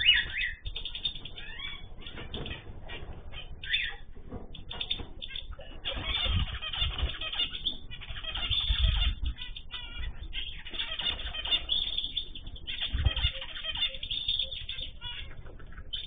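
Small aviary finches, zebra finches and goldfinches among them, chirping and calling, with wings fluttering and a few dull thumps.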